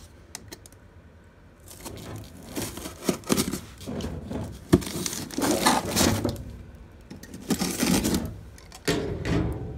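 A cardboard parts box being cut and torn open with a utility knife, the cardboard and plastic wrap rustling and tearing in irregular bursts after a quiet first second or two, with one sharp click about halfway through.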